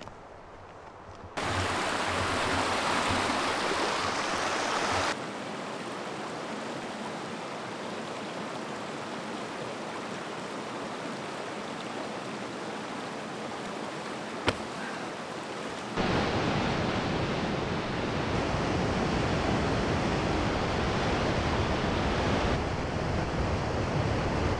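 Rushing water of a rocky creek and river rapids: a steady, loud rush that jumps in level at cuts, loud from about a second in, softer from about five seconds, and loudest from about sixteen seconds. One sharp click midway.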